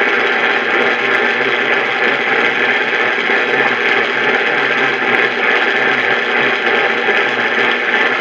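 Steady, loud hiss of radio static, unchanging throughout.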